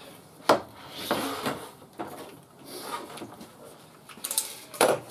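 Hand tools and wooden pieces being handled on a plywood workbench: a sharp knock about half a second in, light clinks and rustling, then a few quick clicks and a knock near the end.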